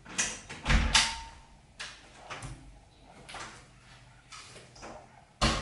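Slippered footsteps on a tiled floor and the knocks of a wooden door: a string of sharp taps and scuffs, loudest about a second in and again near the end.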